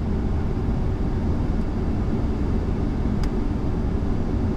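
Steady flight-deck noise of an Airbus A340-300 on final approach: an even low rumble of airflow and engines, with a single brief click about three seconds in.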